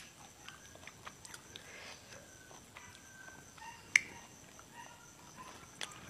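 Faint handling noise of fresh leafy greens being picked apart by hand, with scattered light clicks. There is a sharp click about four seconds in as the greens are dipped into a small glass bowl of dip.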